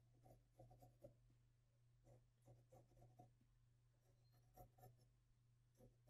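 Faint scratching of a pencil drawing light lines on paper, in many short strokes.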